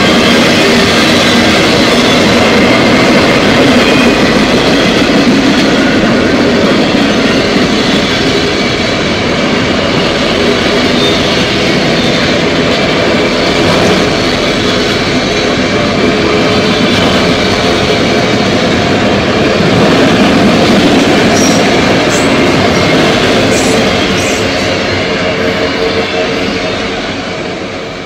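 Freight train of autorack cars rolling past: steady loud wheel-on-rail rumble and clatter with faint high squealing from the wheels. It fades out near the end.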